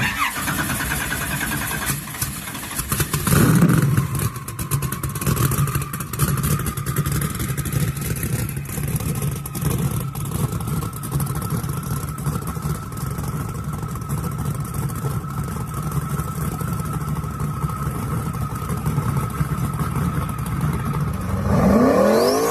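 Twin-turbo Hemi V8 of a jet boat running loud, cutting in suddenly and revving hard about three to four seconds in, then holding a steady run with a steady high whine over it. Near the end the pitch climbs.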